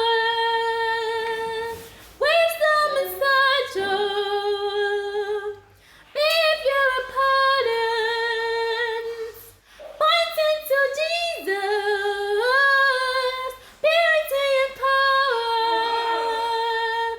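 A woman singing a revival worship song unaccompanied, a cappella, in sustained phrases of about four seconds with short breaks for breath between them.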